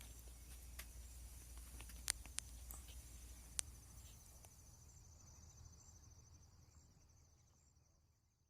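Faint insects trilling in a steady, finely pulsed high note over a low rumble, with a few sharp clicks about two to three and a half seconds in; everything fades out near the end.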